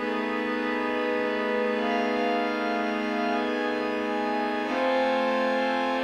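Organ playing held chords that come in suddenly and sustain without fading, moving to a new chord about four and a half seconds in.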